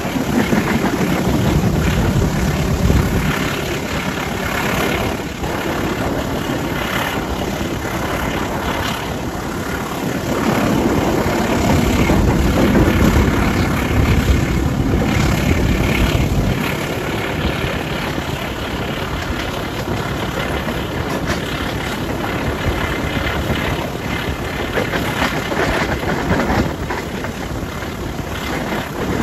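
CC203 02 03, a GE-built diesel-electric locomotive, running with its engine under power, making a steady loud drone that swells for a few seconds in the middle.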